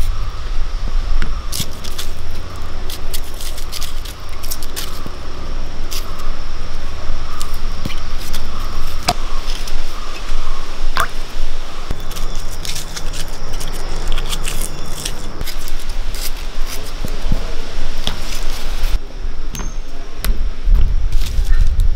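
Scattered small clicks and taps of a knife peeling shallots, and of shallots and a tomato dropped into a clay pot of water. A steady low rumble runs underneath.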